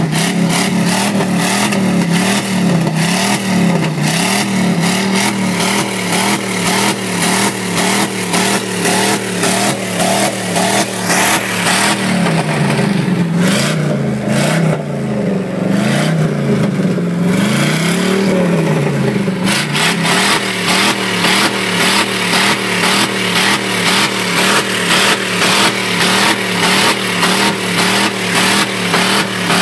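Chevy 350 small-block V8 in a pickup held at full throttle on the rev limiter, the revs cutting out and picking up again in a rapid, repeated stutter. Roughly midway through, the revs sag and climb in a few slower swells, then it goes back to bouncing on the limiter.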